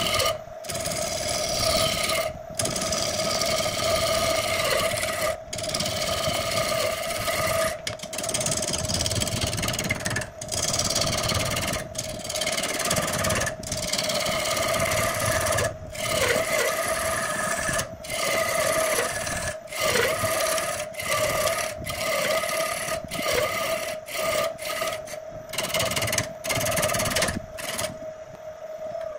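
Wood lathe running with a steady hum while a hand-held turning tool cuts into a spinning wood blank, giving a continuous rasping scrape, broken by many brief gaps.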